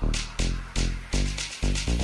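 Electronic background music with a fast, steady beat of heavy bass hits, about three a second.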